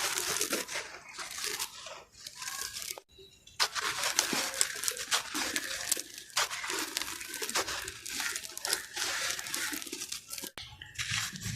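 A dried sand-cement block being crumbled into soft, crunchy chunks: a dense run of gritty crunching and crackling, with a brief pause about three seconds in.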